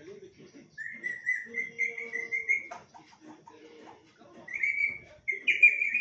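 Alexandrine parakeet giving two long, wavering whistled calls, the second one near the end louder, with soft low chattering between them.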